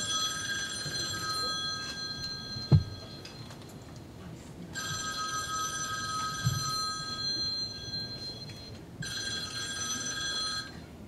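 Telephone ringing: an electronic ring of steady tones in long rings of about four seconds with short pauses between, the last ring short. A single sharp thump about three seconds in.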